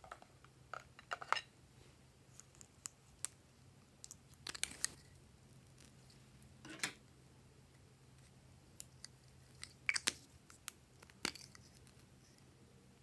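Glossy slime being worked by hand: irregular sticky clicks and small crackling pops, coming in scattered clusters.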